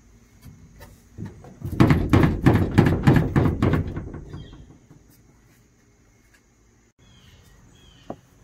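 A pine board laid across a small aluminum boat's ribbed hull being pushed and rocked by hand, knocking rapidly against the metal, about five knocks a second for some three seconds before fading. The board is being shaken to test that the new seat is sturdy.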